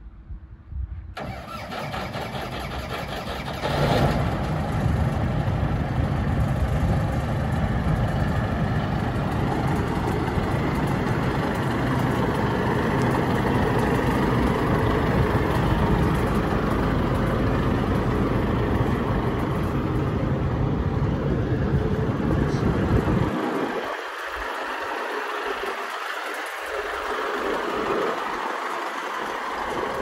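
Self-propelled corn harvester's diesel engine starting up: it turns over from about a second in, catches and gets louder near four seconds, then runs steadily.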